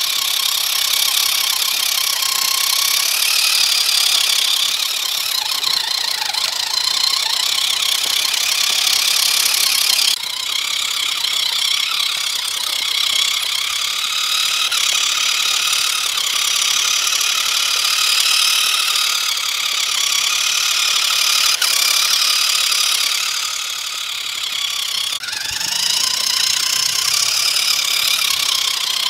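WPL C24 1/16-scale RC truck's small electric motor and gearbox whining as it drives over dirt, a high steady whine with a rattle. The sound changes abruptly twice, about ten seconds in and again near the end.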